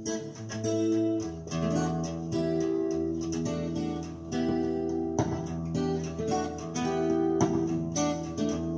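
Recorded song in an instrumental passage with strummed acoustic guitar, a bass line coming in about a second in. It plays through a 13JZ8 tube amplifier of about 2 watts and old 1959 Phonola 10.2-inch radio speakers.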